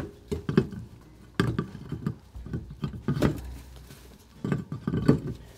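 Metallic clinks and knocks of a steel spare wheel being worked onto the hub studs of a jacked-up car, coming in several short clusters.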